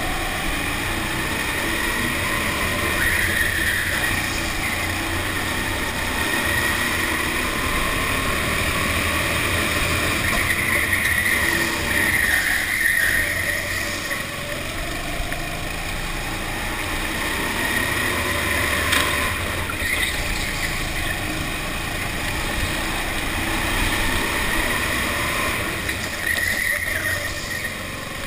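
Go-kart engine heard from the driver's seat, its revs rising and falling several times as the kart accelerates and slows through the corners.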